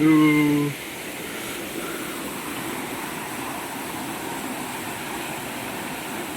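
Steady rushing of a waterfall and fast river water. At the very start comes a brief loud shout held on one note for under a second.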